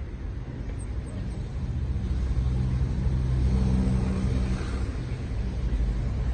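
A motor vehicle's engine running, a low hum that grows louder for a few seconds around the middle and eases off again, over a steady low rumble.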